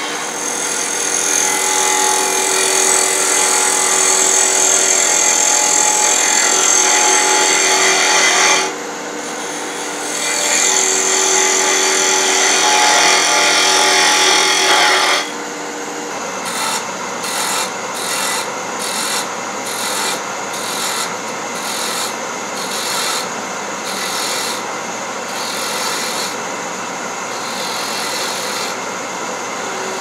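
Wood lathe spinning a small wood blank while a hand-held turning tool cuts it, a steady hiss of the cut with a brief lull about nine seconds in. In the second half the cuts come in short repeated passes, the tool lifting off roughly once a second.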